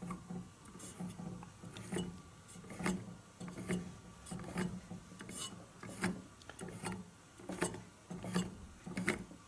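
Colour filter wheel of a 1920s Pathé 9.5mm projector being turned by hand, clicking roughly once a second as its holes catch on the detent nubs and it locates itself in line with the lens.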